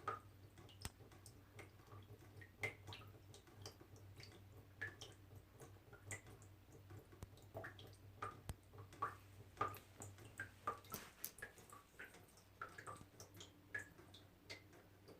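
Small water drops dripping, several a second at an irregular pace, each a short pitched plink. A faint steady low hum runs underneath.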